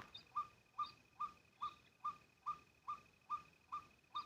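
A short, hooked bird call repeated very evenly, about two and a half notes a second, over a steady thin high tone.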